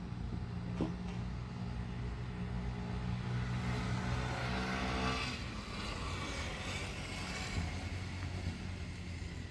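A motor vehicle passing: a steady engine hum with road noise that swells through the middle and fades again.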